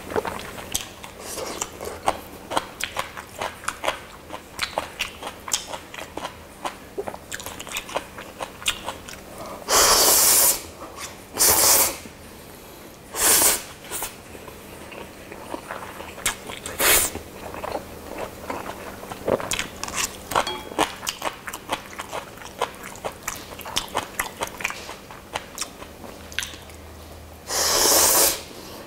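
Close-miked eating of Chapagetti black bean instant noodles: wet, clicking chewing and mouth sounds run on steadily. Several loud noodle slurps break in, a few around ten seconds in, one a little later, and a longer one near the end.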